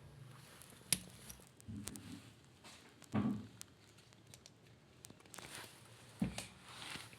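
Handling noise from dishwasher parts being worked on: scattered clicks and knocks with rustling between them, the loudest knock about three seconds in.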